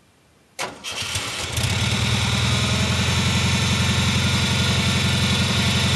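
Air-cooled Volkswagen 40 hp flat-four engine powering a log splitter, starting about half a second in and settling within a second into steady running.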